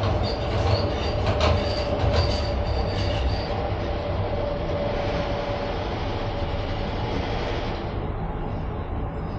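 Cable car cabin running on its haul rope, its grip and hanger clattering over rollers: a run of quick clacks with a high squeal for the first three seconds or so, and a steady whine that fades out a little past halfway, over a constant rumble.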